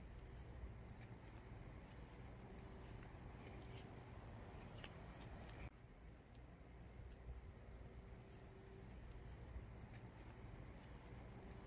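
Near silence with a faint cricket chirping steadily in the background, a few high chirps a second.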